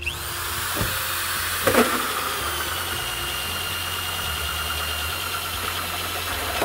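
Milwaukee drill driving a 2¾-inch hole saw through the sheet-metal back wall of a truck cab: a steady motor whine with the grinding of the saw teeth, and a brief louder grab about two seconds in.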